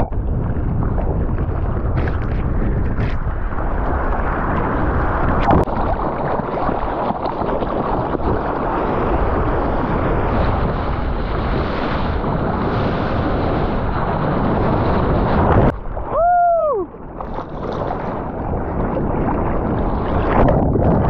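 Sea water rushing and splashing past a surfer's action camera, with heavy wind buffeting on the microphone, as the surfboard moves through the water and whitewater. About three-quarters of the way through, the rushing drops briefly and a short high call rises and falls over about a second.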